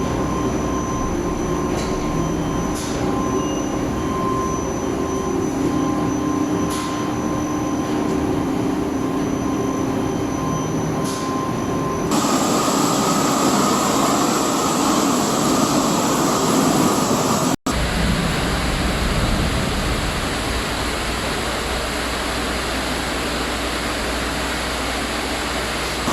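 Steady machinery noise with a constant hum and a thin whine. It changes abruptly about twelve seconds in to a harsher rush, then to a deeper rumble after a momentary dropout.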